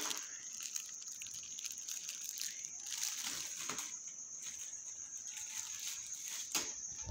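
Small metallic clicks, knocks and scrapes of a screwdriver working against the steel frame and expansion-slot covers of an open desktop PC case, with a few sharper knocks in the second half, over a steady faint high-pitched whine.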